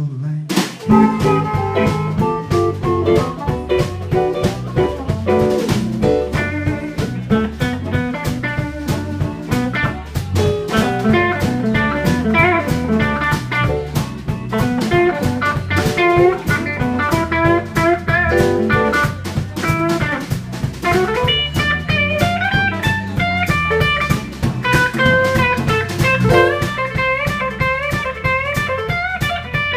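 Live blues band playing an instrumental passage: electric guitar lead lines over drum kit and a low bass line with a steady beat.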